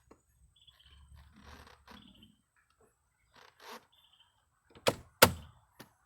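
Handling noise on the plastic steering-column parts, then two sharp snaps about a third of a second apart near the end as the plastic clip of the headlight/multifunction switch is popped down into place.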